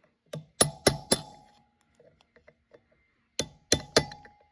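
Hammer tapping a steel punch to bend up the lock tabs against the rear sprocket's mounting nuts: two quick runs of about four sharp metal taps, each ringing briefly, with a few faint ticks in between.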